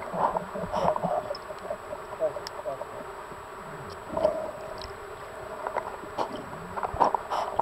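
Underwater sound picked up by a camera held in the water: a muffled, bubbly wash with scattered small clicks, and short muffled voice-like bursts about four and seven seconds in.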